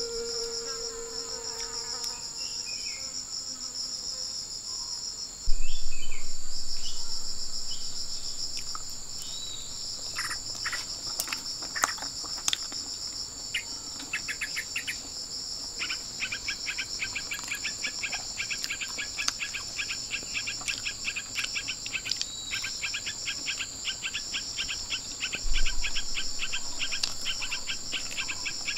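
Steady high-pitched chorus of insects such as crickets or cicadas, joined in the second half by a fast pulsing insect trill, with a few short bird chirps early on. A dull low thump followed by a fading rumble comes about five seconds in and again near the end, the loudest sounds in the stretch.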